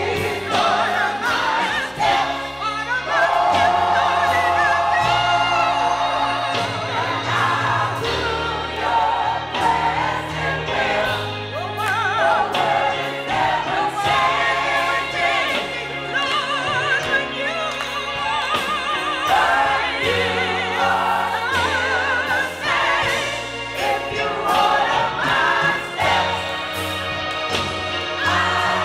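Church choir singing a hymn, many voices with a wavering vibrato over low sustained accompanying notes that change in steps.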